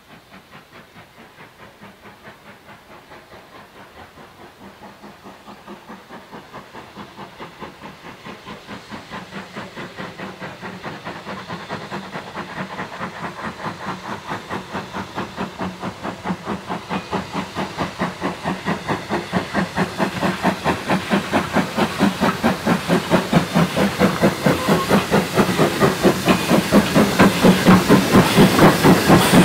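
BR Standard Class 2MT 2-6-0 steam locomotive No. 78018 running with a train, its exhaust beating in an even, quick rhythm that grows steadily louder as it approaches.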